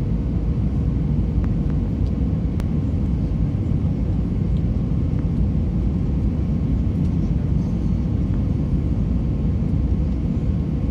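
Steady low rumble of engine and airflow noise inside an Airbus A320's cabin on final approach, with a thin steady hum over it. A single light click sounds about two and a half seconds in.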